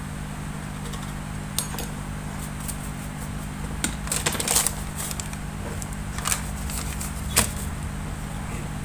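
Light clicks and small metallic taps from tweezers and parts being handled and set down on a workbench, with a cluster of taps about four seconds in and a sharper click near the end, over a steady low hum.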